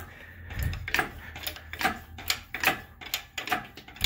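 Metal hardware of an engine lifting rig clinking and clanking, a quick irregular run of sharp knocks, about three or four a second, with a few heavier dull thuds among them.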